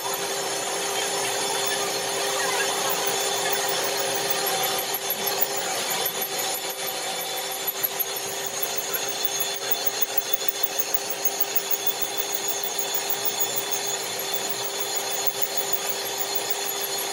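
A metalworking machine running steadily with a constant hum and a rough, scraping cutting noise as it works on a metal part.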